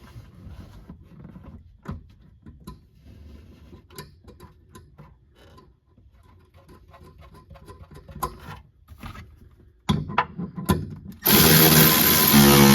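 Light metal clicks and knocks of hand work on a shock absorber mount. About eleven seconds in, a power tool starts running loudly and steadily.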